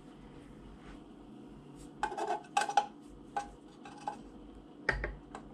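Clipped-on metal cover of a vintage TV's high-voltage cage being worked loose by hand. A quick cluster of metallic clinks and rattles comes about two seconds in, then a few single clicks, and a duller knock near the end.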